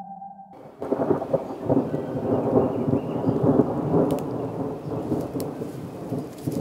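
A held electronic tone stops, and about a second in a loud, rumbling, crackling noise sets in and carries on, its weight in the low and middle range.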